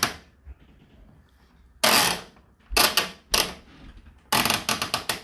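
Rotary programme dial on an Indesit IDC8T3 condenser tumble dryer being turned, clicking through its detent positions in several short runs, with the longest run of rapid clicks near the end.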